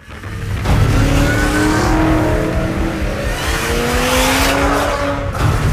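A modern Camaro-based Pontiac Trans Am muscle car accelerating hard, its engine note climbing. The pitch drops at a gear change about three seconds in, then climbs again.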